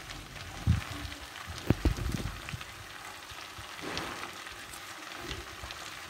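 Potatoes frying in oil in a pan, sizzling steadily under a layer of freshly added chopped spinach. A few dull knocks in the first two seconds.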